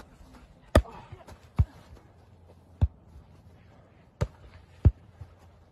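A volleyball being struck back and forth in a rally: five sharp smacks at uneven intervals, roughly one a second.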